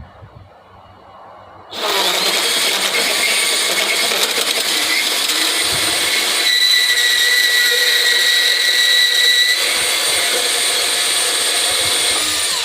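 Hercules 20V brushless cordless deep cut band saw running at speed 6, its top setting, on a test cut. It starts suddenly about two seconds in, runs steadily with a high whine added for a few seconds in the middle, and winds down at the very end.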